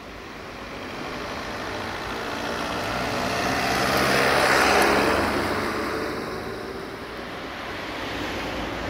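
A passing vehicle's broad rushing noise, swelling to a peak about halfway through and then fading.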